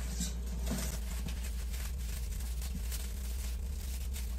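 Light rustling and small clicks as a woven shopping bag and the wrapped items in it are rummaged through, over a steady low hum.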